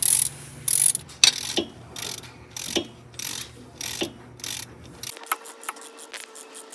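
Socket ratchet clicking through short, repeated strokes, about two a second, then a run of lighter, sharper metallic clicks near the end.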